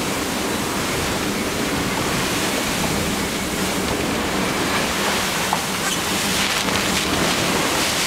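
Steady rush of wind and sea water breaking along the hull of a 63-foot Sparkman & Stephens sailing yacht, heeled over and driving through rough Atlantic waves under sail.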